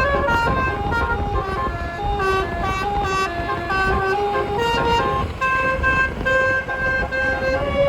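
A 12-note telolet air-horn set, a rack of roof-mounted horn trumpets, playing a quick melody of held notes that step from pitch to pitch, often two or three sounding together. A low rumble runs underneath.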